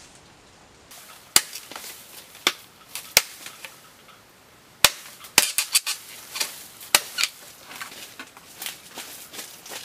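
Machete chopping bamboo and vegetation: a few sharp strikes about a second apart, then a quicker run of chops from about five seconds in, with leaves rustling and crackling between blows.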